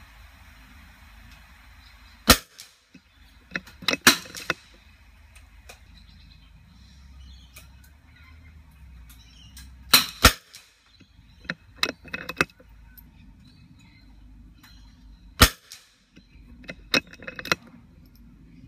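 .22LR rimfire rifle firing single shots several seconds apart: sharp cracks, the loudest about 2, 10 and 15 seconds in. Clusters of smaller clicks come between the shots.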